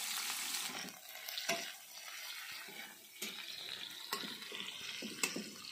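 Sliced onions sizzling in hot oil in a kadai, loudest at first and settling after about a second, with the metal spatula clicking and scraping against the pan a few times as they are stirred.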